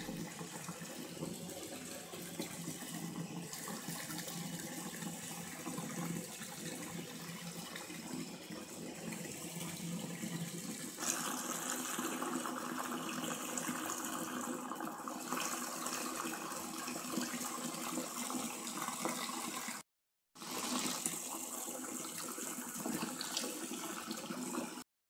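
Bath water sloshing and splashing as a hand sweeps through a tub of bubble-bath foam, a steady watery noise that grows louder about eleven seconds in and cuts out briefly near the end.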